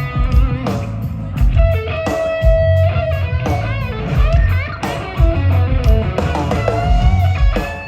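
Live rock band playing, led by an electric guitar solo with bent and held notes over drums and bass.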